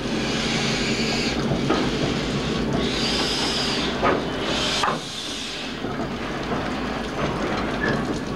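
LNER N7 0-6-2T tank engine no. 69621 working slowly past, giving off bursts of steam hiss about a second long, each ending in a knock. The hiss stops about six seconds in, leaving a low rumble.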